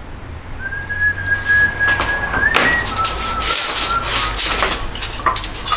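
Two long whistled notes, each held at a steady pitch. The first steps up at its end and the second is lower. Short knocks and rustles of handling are heard around them.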